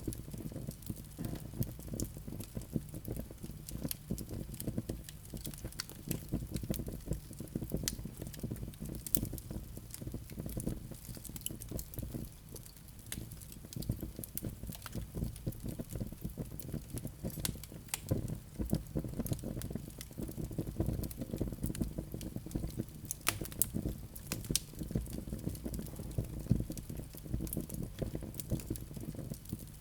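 Wood fire crackling: frequent irregular sharp pops and snaps over a low steady rumble.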